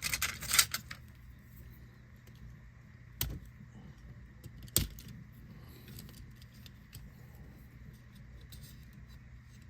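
Small hard clicks and clatter of a hand tool working on an opened Nintendo Joy-Con: a quick cluster of clicks in the first second, then two single sharp clicks about a second and a half apart, with a faint low hum between.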